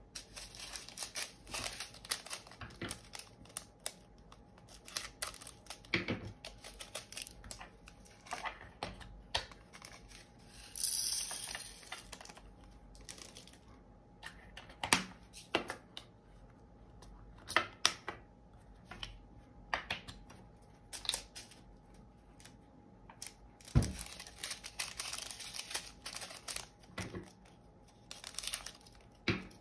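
Handling of diamond-painting kit packaging: small plastic drill bags crinkling and tearing, with irregular clicks and taps of small plastic storage containers. A short hissing rush comes about eleven seconds in.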